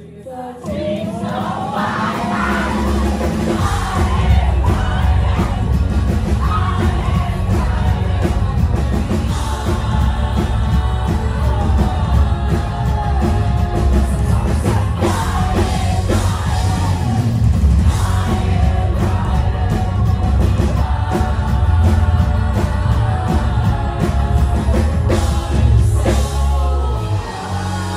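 Live band playing loud: electric guitars, keyboard, drums and sung vocals. The full band comes in about half a second in and drops back just before the end.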